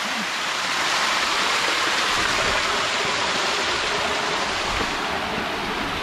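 Steady rush of a mountain stream's water flowing over rocks, an even hiss with no pauses.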